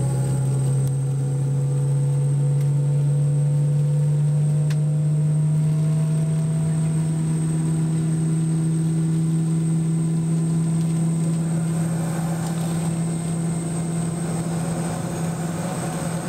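Boeing 717-200's tail-mounted Rolls-Royce BR715 jet engine running at idle, heard inside the cabin from a seat right beside it. It gives a steady deep hum and a thin high whine, with a few tones slowly rising in pitch over the first several seconds.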